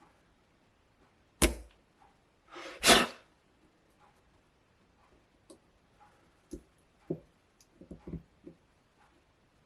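Small handling noises from working a drill bit and tools at an iPad's headphone port: a sharp click about a second and a half in, a short rush of noise like a breath or whoosh about three seconds in, then scattered light ticks and taps.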